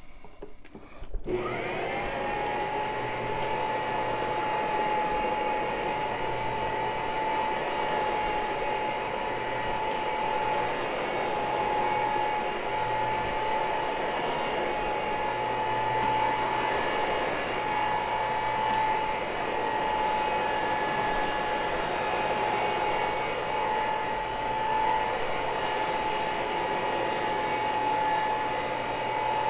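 A carpet-cleaning machine's electric motor switches on about a second in, quickly whines up to speed, then runs steadily with a high whine over a rushing hiss of air.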